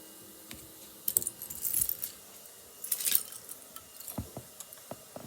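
Small plastic Lego pieces clattering and rattling as they are rummaged through and picked up: two brief bursts of rattling, then a few scattered light taps.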